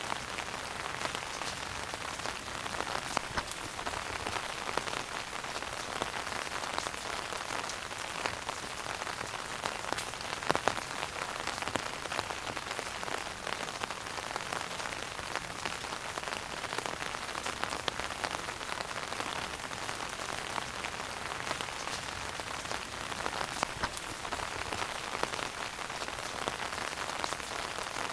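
Wood fire burning in a fireplace, crackling steadily with a dense patter of small pops and an occasional louder pop.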